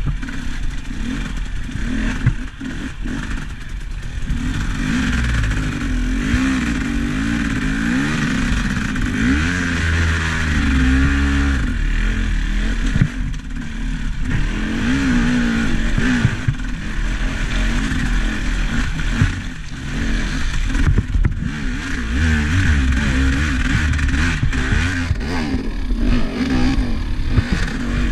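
Vehicle engine running and revving, its pitch rising and falling again and again, with rattling and clatter throughout.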